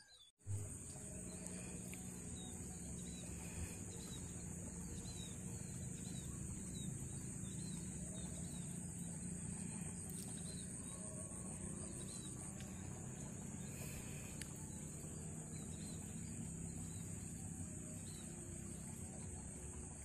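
Thin, short chirps from a flock of munias, repeating about twice a second, over a steady high-pitched drone and a low rumble. The chirps thin out past the middle.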